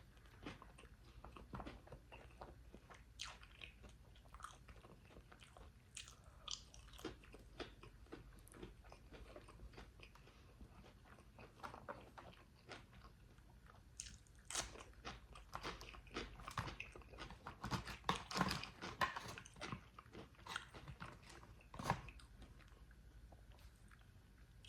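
A person eating crunchy food close to the microphone: crisp bites and chewing, coming thicker and louder in the second half.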